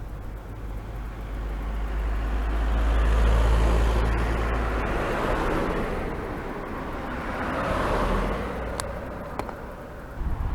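Road traffic passing: a vehicle's noise swells to a peak about three seconds in and fades, then a second one swells near eight seconds.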